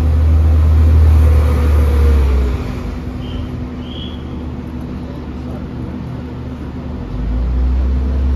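Steady low electrical hum of a stationary double-deck electric suburban train at the platform; a deeper drone cuts out about two and a half seconds in and comes back near the end.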